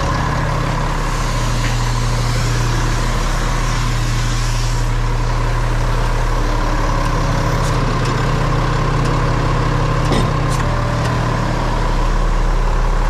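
Roll-off garbage truck's diesel engine idling steadily, with a couple of sharp clicks about eight and ten seconds in.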